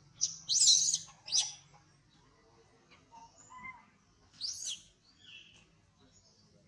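Infant long-tailed macaque crying in short, shrill, high-pitched shrieks: a cluster in the first second and a half and another about four and a half seconds in.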